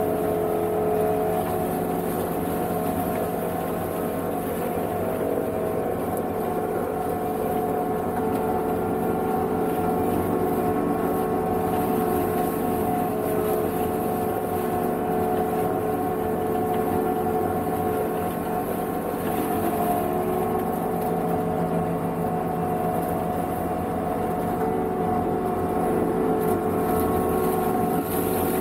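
Energreen ILF S1500 self-propelled mower running steadily at working speed: a constant engine and hydraulic drone carrying several steady tones, its level even throughout.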